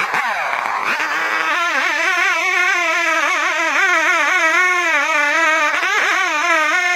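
Two-stroke chainsaw cutting through the trunk of a large standing tree, the engine held at high revs under load. Its pitch wavers up and down steadily as the saw is worked in the cut, after a brief drop and rise in revs in the first second or so.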